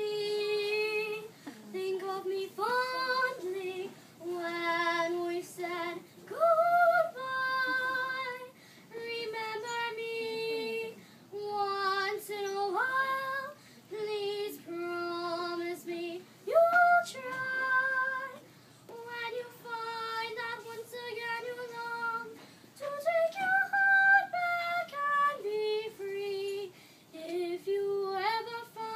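A young girl singing solo in a clear, high voice, holding notes with vibrato and sliding up between phrases, with short pauses for breath.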